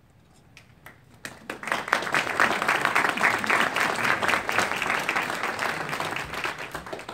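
Audience applauding: a few scattered claps about a second in, swelling quickly into full steady applause, then dying away near the end.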